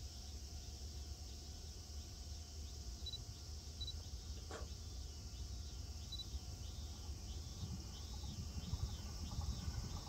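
Insects chirping in a rice field: a steady, evenly repeating chirp over a high insect hiss, with a low rumble underneath that grows louder near the end.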